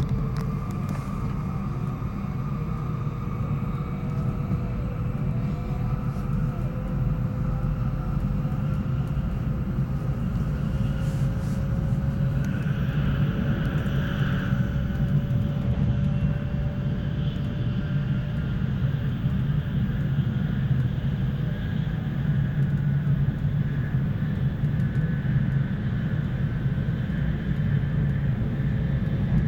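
Interior cabin noise of an N700 series Shinkansen running at speed: a steady low rumble with a faint whine that rises slowly in pitch over the first half as the train gathers speed. About halfway through, the noise briefly turns brighter while the train crosses a steel truss bridge.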